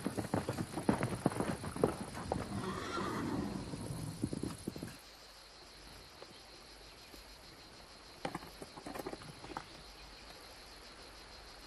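Horse hooves clip-clopping, with a horse whinnying about three seconds in. After about five seconds the hoofbeats stop, leaving quiet room tone with a few faint knocks.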